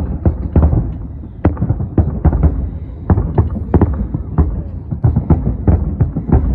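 Fireworks going off in a rapid, irregular string of bangs and pops, several a second, over a continuous low rumble.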